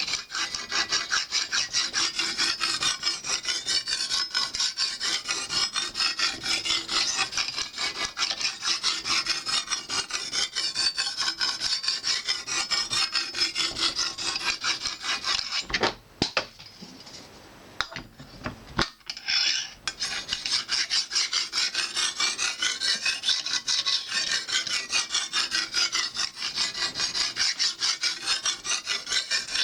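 Lansky guided sharpening hone, the sapphire stone, scraping in quick repeated back-and-forth strokes along a clamped knife edge. The strokes stop for about three seconds past the middle, then start again. The stone is taking the edge past the fine grit to polish it smoother.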